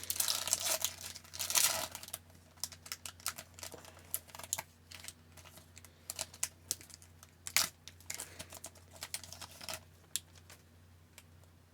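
Trading card pack wrapper crinkling as it is torn open. It is followed by a long run of light clicks and snaps as the cards are flipped through one by one, thinning out near the end.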